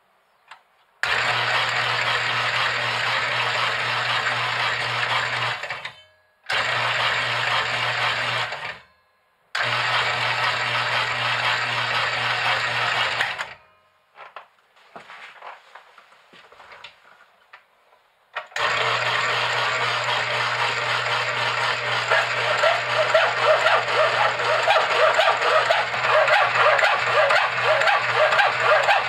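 Homemade power hacksaw running, its electric gear motor driving the blade back and forth with a steady hum. It cuts off and restarts sharply a few times. Midway there are a few seconds of only faint clicks. Then it runs steadily again, growing louder with a rhythmic pulse from the blade strokes near the end.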